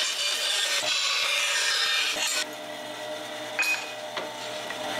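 Woodworking bandsaw cutting a sheet of aluminium: a loud, even cutting noise for about two and a half seconds, then quieter as the blade runs on with the cut eased off, with a brief high squeal a little before the end.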